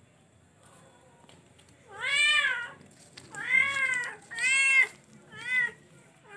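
A cat meowing four times in quick succession, each call rising then falling in pitch, the last one short.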